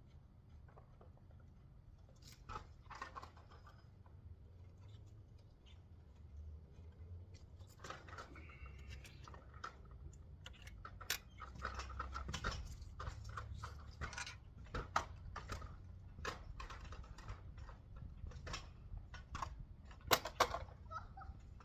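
Hand tools and metal hardware clinking and clicking irregularly while an engine is bolted back onto a garden tiller, over a low steady hum. The clicks come thicker and louder in the second half.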